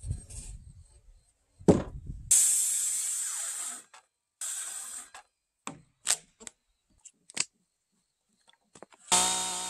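A handheld electric circular saw cuts a row of short kerfs across a squared log beam for a notch, in several separate bursts of a few seconds down to brief blips, after a thump. Near the end a two-stroke chainsaw starts and runs steadily.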